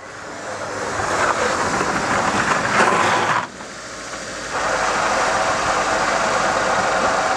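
A 1996 Mitsubishi Lancer drives up a gravel lane, engine running and tyres on gravel, growing louder as it comes close. It stops about three and a half seconds in, and its engine then runs on steadily close by.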